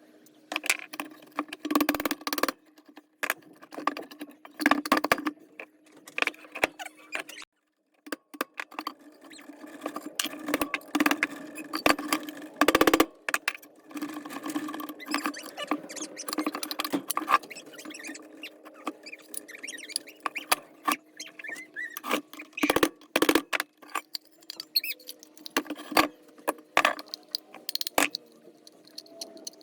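Irregular metal clinks, knocks and scrapes as the hand-crank forge blower's opened gearbox and its gears are handled, over a steady background hum.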